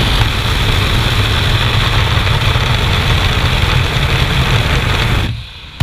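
Light aircraft's engine drone mixed with heavy wind rush through the open jump door, steady and loud, dropping away sharply about five seconds in.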